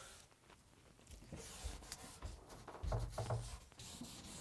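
Fine 1000-grit sandpaper rubbed by hand over a varnished walnut surface: a faint, scratchy rubbing, with a few soft knocks about three seconds in.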